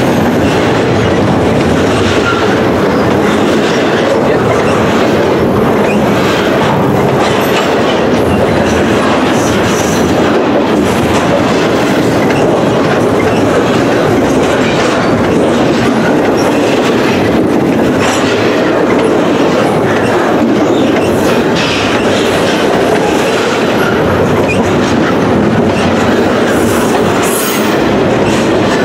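Double-stack intermodal container well cars of a freight train rolling past at speed: a steady loud rumble and clatter of steel wheels over the rail joints, with brief high wheel squeals here and there.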